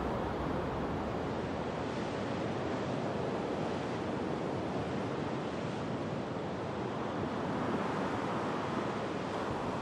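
Steady wind and water noise: an even wash with no distinct events.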